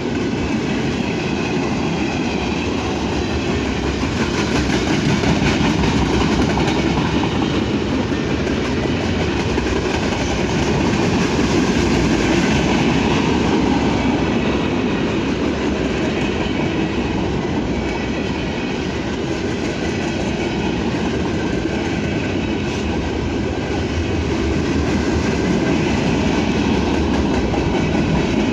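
Freight train cars rolling steadily past, their wheels clicking over the rail joints.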